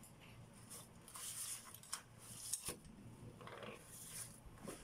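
Faint rustling of a cloth rag wiping around an automatic transmission's drain hole, with a few small sharp metallic clicks as the drain plug and its socket are handled, two of them close together near the middle.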